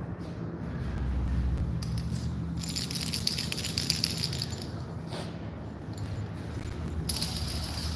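A cat wand toy rattling as it is swung about for kittens, in two spells of quick, high, jingly rattling: one about two and a half seconds in, one near the end. A steady low hum runs underneath.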